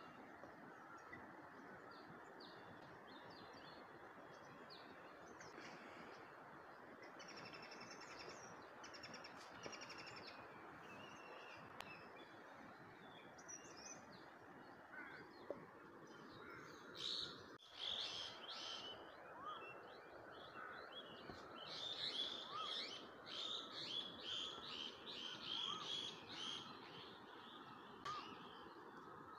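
Birds chirping over a steady low background hiss, with louder runs of rapid chirps in the second half.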